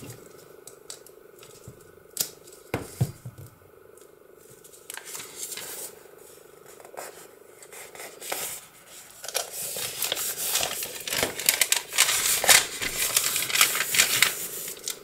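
Sheets of paper and card being handled and folded: scattered light taps and short rustles, then a few seconds of busy rustling and rubbing of paper near the end.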